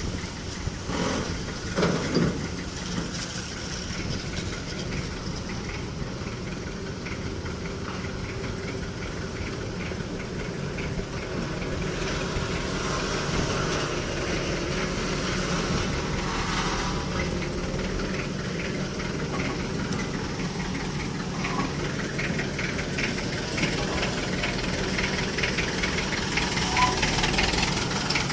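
Heavy diesel engine running steadily, with a sharp knock about two seconds in.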